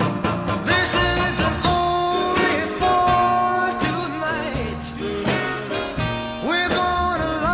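A song with a singer holding long, sliding notes over a steady drum beat and accompanying instruments.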